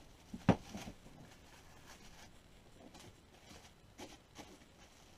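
Plastic cling wrap crinkling and rustling as it is wound around a raw turkey breast by hand, with a sharp knock about half a second in.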